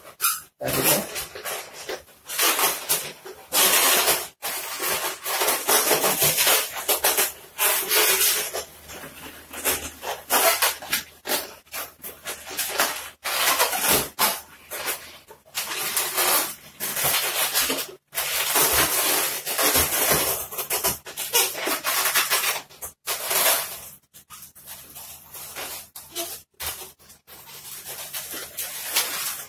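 Latex modelling balloons squeaking and rubbing against each other as they are twisted and bent into shape by hand, in a long string of irregular bursts.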